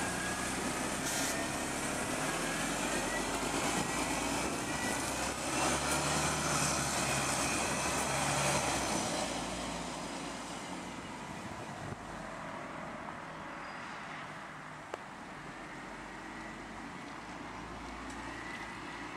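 Mercedes-Benz Citaro CNG city bus pulling away, its natural-gas engine running with a faint whine that rises in pitch. The sound fades about halfway through as the bus drives off.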